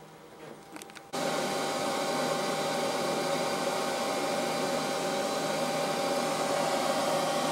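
A loud, steady mechanical whir starts abruptly about a second in, after a couple of faint clicks, and holds on unchanged.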